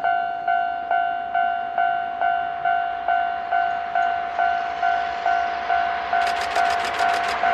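Level crossing warning bell ringing steadily in a two-tone electronic ding, a little over two strikes a second, while an approaching Kintetsu train's running noise swells. Near the end comes a rapid run of sharp clicks as the train reaches the crossing.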